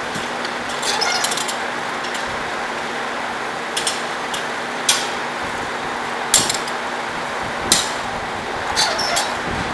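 Irregular sharp metallic clanks of hot steel bars being handled and set into a belt-driven forming machine for U-bolts. A steady machine hum with a low tone runs underneath.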